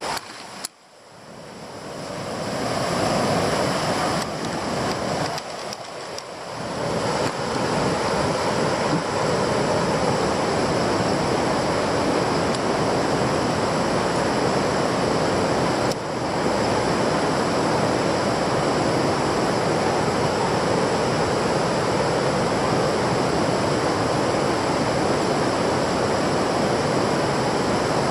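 Steady rush of river water flowing over a low causeway. It builds over the first few seconds, then holds even.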